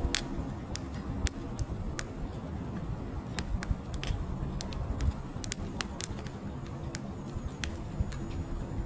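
Split firewood logs burning in an open fire: irregular sharp crackles and pops, a few each second, over the low rush of the flames.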